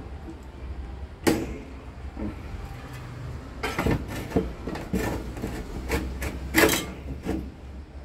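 Irregular clicks and knocks of tools and parts being handled, over a steady low hum. Most of the knocks come in the second half.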